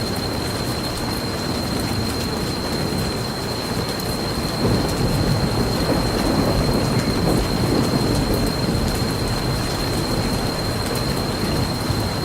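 Steady rain ambience, with a low rumble of thunder swelling about four and a half seconds in and fading over the next few seconds. A thin, steady high tone sits underneath.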